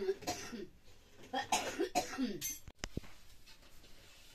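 A person coughing in two short bouts of several coughs each, followed by a sharp click about three seconds in.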